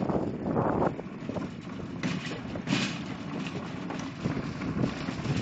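Metal shopping cart rolling and rattling over parking-lot pavement and sidewalk as it is pushed, with a few short hissing gusts of wind about two and three seconds in.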